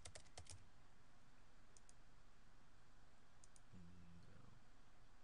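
Computer keys tapped quickly at the very start, then soft mouse clicks, two quick pairs about a second and a half apart, over quiet room tone. A brief low hum comes about four seconds in.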